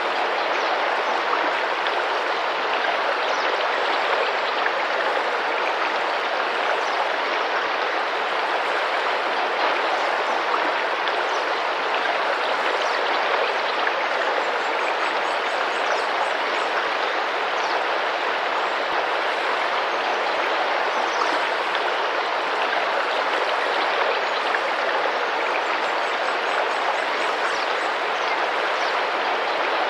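Tropical rainforest river water rushing and splashing steadily over rocks, with faint high bird chirps now and then above it.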